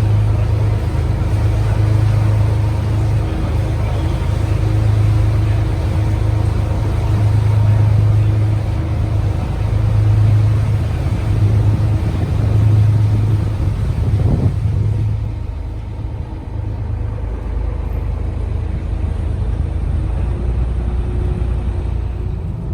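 Canal tour boat's engine running with a steady low drone, heard from on board. About fifteen seconds in it eases off and the drone becomes quieter.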